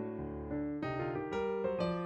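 Background piano music: several lines of notes played together at a moderate pace.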